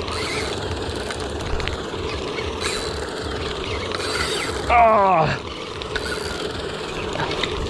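A spinning reel being cranked to bring in a hooked grouper, its gears and mechanism giving a steady whirring rattle. About five seconds in, a short voice exclamation falls in pitch and is the loudest sound.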